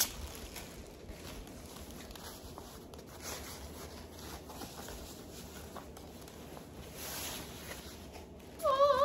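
Faint rustling of clear plastic wrapping and paper stuffing as a backpack is pulled from its bag and handled. Near the end, the loudest sound: a person humming a short wavering tune.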